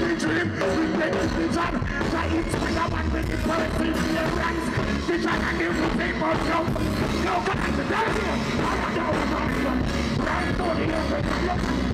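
Live reggae band playing over a concert PA, with a steady bass line and a vocalist on microphone.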